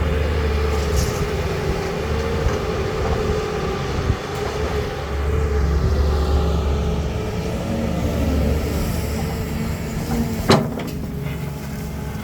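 Caterpillar 320 hydraulic excavator working: its diesel engine running steadily under a wavering hydraulic whine, with a sharp bang near the end.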